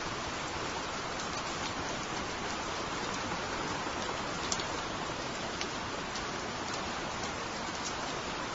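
Steady rain falling, with scattered sharp ticks of single drops striking close by.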